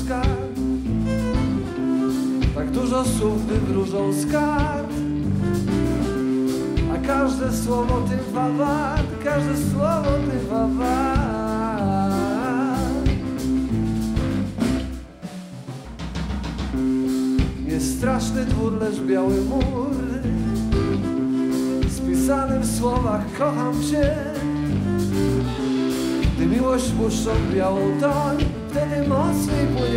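Blues-rock band playing a slow number: a violin carries a wavering, gliding melody over electric guitar, bass guitar and drum kit. The music drops away briefly about halfway through, then picks up again.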